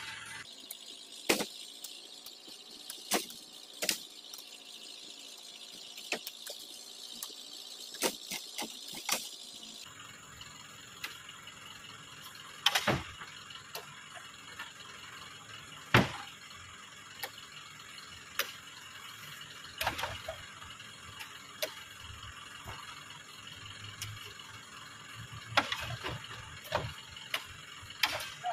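Irregular sharp knocks and thuds, a few seconds apart, from oil palm fruit bunches being speared and lifted with a metal hand spike, over a steady hiss.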